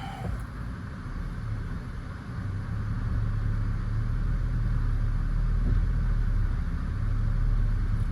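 Toyota Yaris engine pulling under load as the car is driven slowly up onto ramps on ice. The low engine rumble grows louder about two and a half seconds in and holds steady, easing off near the end.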